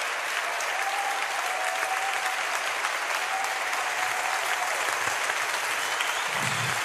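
A large audience applauding, steady sustained clapping throughout.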